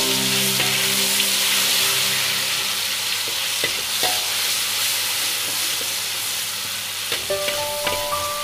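Ground red spice paste sizzling in hot oil in a metal wok, stirred with a metal spatula that scrapes and taps the pan now and then; the paste is being sautéed until fragrant. The sizzle is strongest at first and eases a little.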